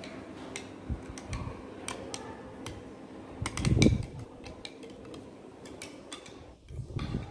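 A spoon stirring a lemon-mint drink in a glass jar mug, ticking and clinking irregularly against the glass. A louder thump comes about halfway through.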